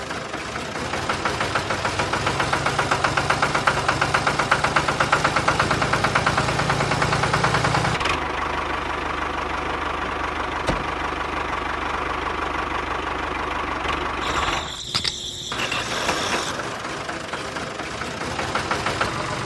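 Small electric motor of a homemade mini wheat thresher running with a fast, regular rattle. The sound changes abruptly about eight seconds in to a steadier running noise, and dips briefly around fifteen seconds.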